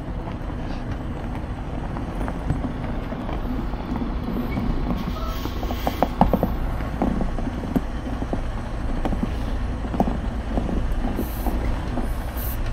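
A truck engine running steadily at low speed, with scattered creaks and clicks over it, a cluster about halfway through and another a little later.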